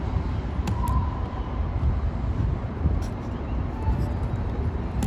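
Low, steady rumble of a DART light rail train running through the station.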